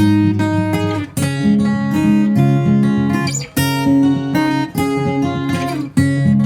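Acoustic guitar music, strummed chords with a steady rhythm.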